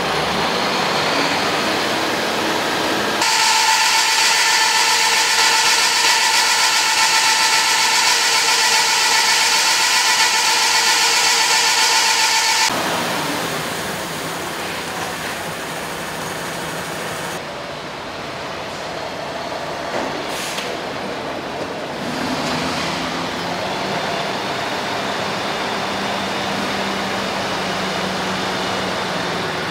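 MAN truck tractor on a roller test stand, its engine running and its drive wheels spinning on the steel rollers: a steady mechanical running noise. From about three seconds in until about halfway it is loudest, a dense hiss with several steady high whining tones. It then drops to a lower, quieter running hum.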